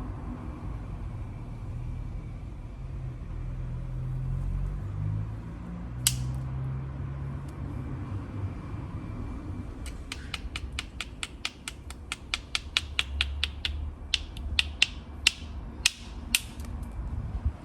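Flint knapping: a hammer strikes the flint once sharply about six seconds in, then taps its edge quickly and lightly, about four taps a second, for several seconds, over low handling rumble.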